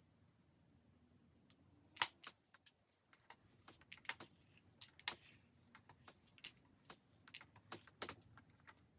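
An irregular run of light, sharp clicks and taps, starting about two seconds in, the loudest near the start and near the end.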